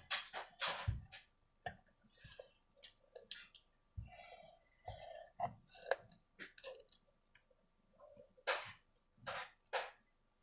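Slime being squeezed and worked by hand, giving irregular sticky clicks and pops.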